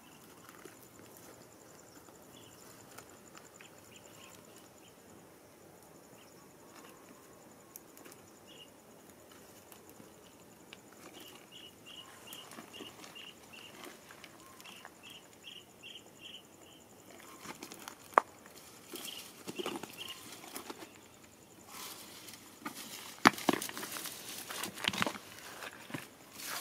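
Footsteps and rustling through weeds and leafy undergrowth, with a few sharp clicks and knocks, mostly in the second half and loudest near the end. Earlier there is only a faint high steady buzz and runs of short high chirps.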